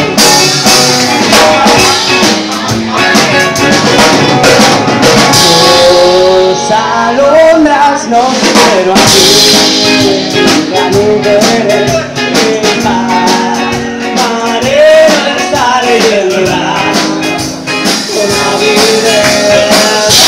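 Live band playing: electric guitars over a drum kit, with a voice singing from about six seconds in.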